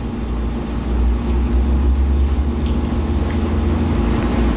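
Steady low hum of room noise, with a few faint clicks.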